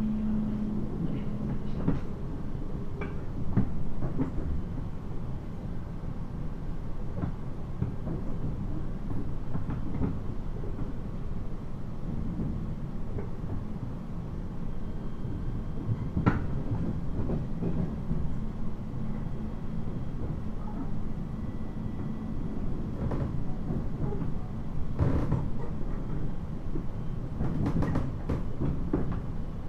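Inside a 719 series electric train running: steady rumble of wheels on rail, with irregular knocks and clicks from the track and a low hum that comes and goes. The track is in poor condition, which makes the ride rough and noisy.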